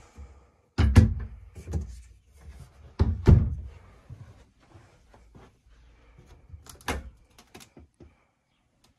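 Wooden wardrobe doors in a camper being swung open and shut, knocking and thudding against their frames and latches; the loudest thuds come about a second and three seconds in, another near seven seconds, with lighter knocks between.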